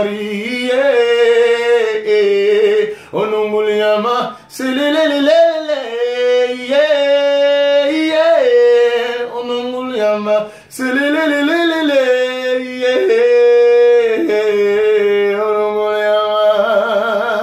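A man singing a gospel song unaccompanied, in long held phrases with short breaths between them. The last note near the end wavers with vibrato.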